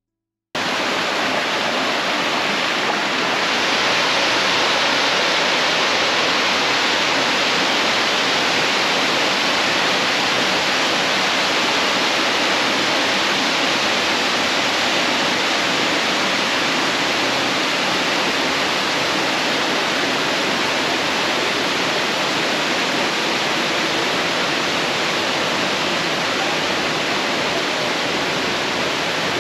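Waterfall rushing, a steady, loud roar of falling water that cuts in abruptly about half a second in.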